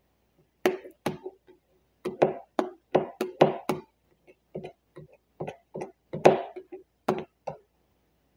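Hard plastic squeegee tapping and knocking against the film-covered edge of a wooden workbench: about twenty sharp, irregular taps over some seven seconds, each with a brief ring, as the protection film's edge is pressed down.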